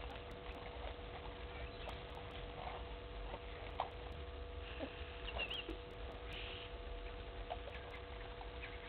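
Quiet outdoor waterhole ambience: scattered faint ticks and pattering over a steady low hum, with a few brief high chirps about five to six seconds in.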